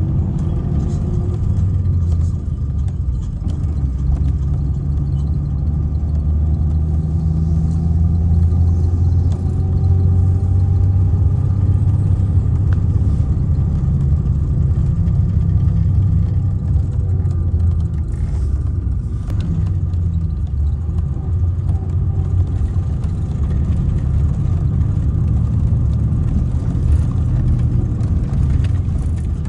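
Mercedes-Benz O-500R coach's diesel engine running with a steady low rumble, its pitch drifting slowly up and down.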